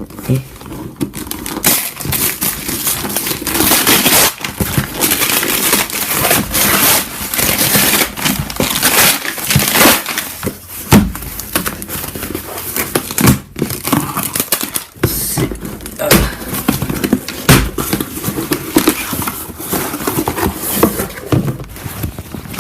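Christmas wrapping paper being torn and crumpled by hand: a long, irregular run of rustling, crinkling and ripping, with many sharp crackles and a few brief pauses.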